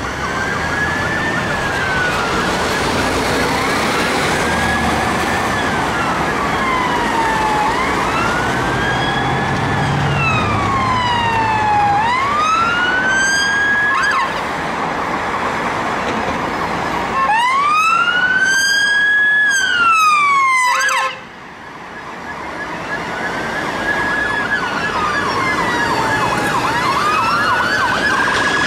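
Sirens of a convoy of UK police vehicles, several wailing at once in overlapping slow rising and falling sweeps, with a fast yelp joining in twice. About three-quarters of the way through the loudest siren cuts off suddenly, and then other wailing sirens build up again as more vehicles approach.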